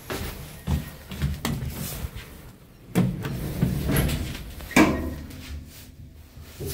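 Jiangnan Express HOMEX5100 passenger lift clunking and rattling: a string of knocks and clatters, the loudest about five seconds in, over a low rumble.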